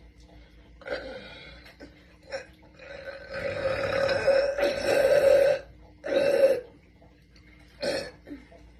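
A young woman burping deliberately: a short burp about a second in, then a long, drawn-out burp lasting over two seconds, followed by two shorter ones, the last near the end.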